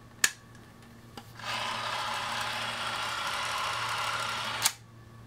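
Vintage spring-wound 16mm cine camera running. A sharp click comes first. About a second later the mechanism whirs steadily for about three seconds, then stops with a click.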